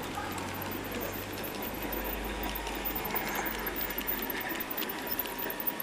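Garden-railway model of a Harz narrow-gauge steam tank locomotive running along the track with its coaches: a steady low hum that deepens about a second and a half in, with light clicking from the wheels on the rails.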